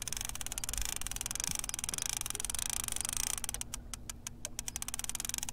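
Line-counter trolling reel clicking as its handle is cranked to bring in a hooked walleye: a fast, dense ticking for about three and a half seconds, then slower separate clicks, about four a second, near the end. A low steady hum runs underneath.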